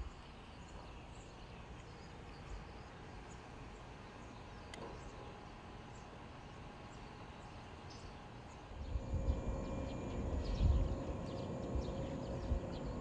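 Outdoor background noise with faint high chirps. About nine seconds in, a louder low rumble with a steady hum comes in and holds.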